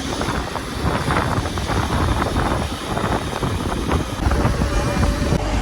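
Wind buffeting the microphone over the steady rumble of a vehicle moving along a road.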